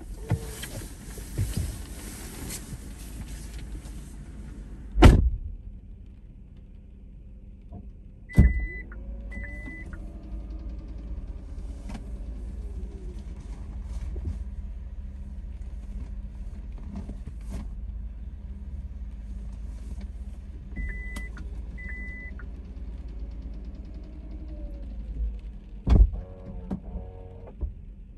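Car door opening, letting in a hiss of rain, and shutting with a loud thud about five seconds in, heard from inside the parked car. Further thuds follow, one at about eight seconds and another near the end, with two pairs of short electronic beeps from the car in between, over a steady low rumble.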